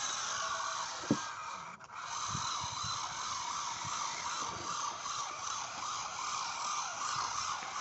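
Battery-driven electric motors and gearing of homemade model tractors straining in a tug-of-war pull: a steady high whine whose pitch wavers up and down, with a sharp click about a second in.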